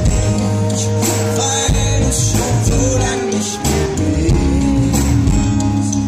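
Live pop-rock band playing: acoustic and electric guitars, bass guitar and drums, with a man singing lead.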